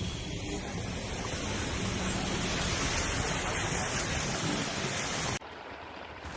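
Storm noise from the cyclone, a steady rushing hiss of rain and wind. It cuts off abruptly about five seconds in to a quieter, fainter hiss.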